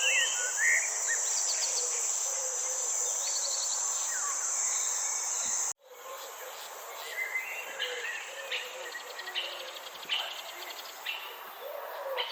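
Garden ambience: a steady high-pitched insect drone, like crickets, under birds chirping and warbling. A little under halfway through, everything cuts out for an instant; after that the insect drone is gone and the birdsong carries on alone.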